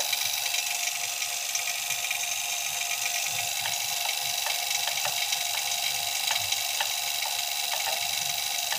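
Refrigeration vacuum pump running steadily as it evacuates an air conditioner's copper lines and compressor through a manifold gauge set, the system close to full vacuum. A steady hiss-like running noise with faint light ticks now and then.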